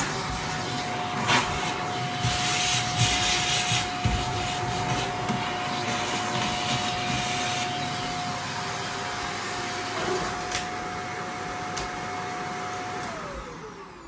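Shark upright vacuum cleaner running with its hose wand in use, a steady motor whine over the rush of suction that swells and eases as the nozzle moves. About 13 s in the motor winds down, its whine falling in pitch.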